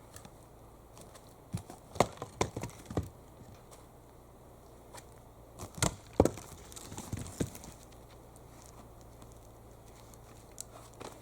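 Sharp wooden knocks and clatter of firewood being chopped and handled, in two quick clusters about two and six seconds in.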